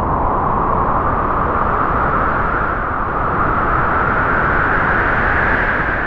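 A strong gust of wind rushing steadily, its whistling pitch rising slowly, then starting to die away at the very end.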